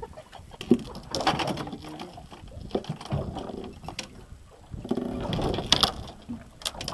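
Spinning fishing reel being cranked against a bent rod, its gears whirring and clicking irregularly, with brief indistinct voices at times.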